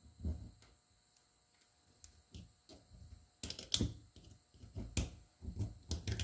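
Irregular light metal clicks and small knocks as a pick or snap-ring pliers work a snap ring (circlip) out of a brake slave cylinder bore. The clicks are sparse at first and come in quick clusters over the last few seconds.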